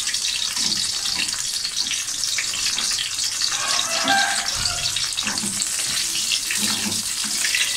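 Whole green chillies shallow-frying in mustard oil in an aluminium karahi over a low flame, a steady sizzle, with the occasional knock and scrape of a metal ladle turning them.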